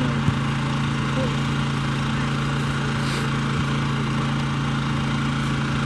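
A small engine running steadily, a constant low hum that does not change.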